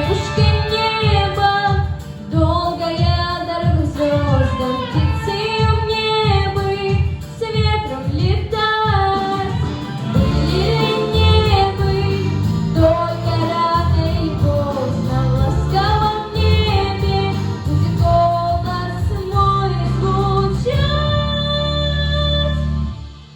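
A girl singing a pop song in Russian over a backing track with a steady beat; the song ends with a held note near the end.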